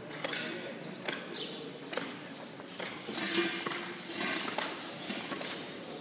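Irregular hard knocks and clicks, roughly one or two a second, over a busy background clatter.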